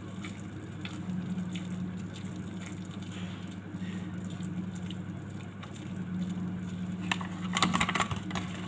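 Whisk beating thick pancake batter in a bowl: wet squishing with light taps of the whisk against the bowl, growing busier and louder near the end. A steady low hum runs underneath.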